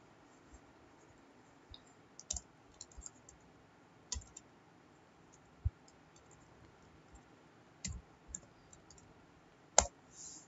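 Sparse clicks of a computer mouse and keyboard, irregularly spaced, with one louder, sharper click near the end.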